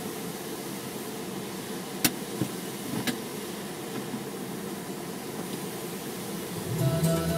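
Steady outdoor background noise with a few sharp clicks about two and three seconds in; music starts near the end.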